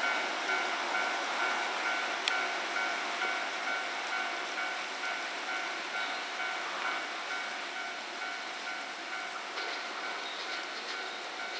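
Japanese level crossing warning bell ringing, an even, repeating two-tone electronic ding. Under it an electric commuter train approaches, with faint clicking near the end.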